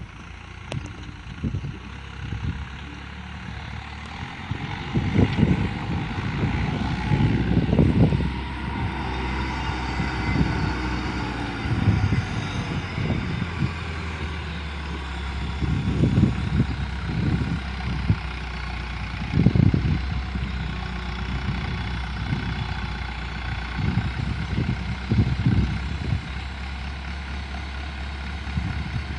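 JCB telehandler's diesel engine running, its speed rising and falling as the machine drives and lifts a round bale. Irregular low rumbles come and go over the engine note.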